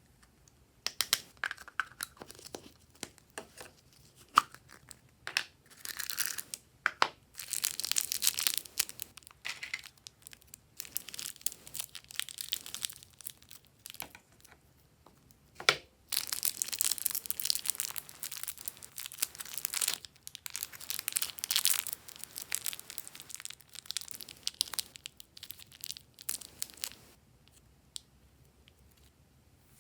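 Glossy slime being squished and stretched by hand: bursts of wet crackling and sharp clicks, with a lull about halfway through.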